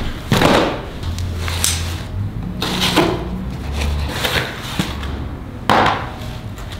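Wooden 2x4 boards being handled and set down, with about five knocks and clunks of wood on wood or on the floor; the loudest come shortly after the start and near the end.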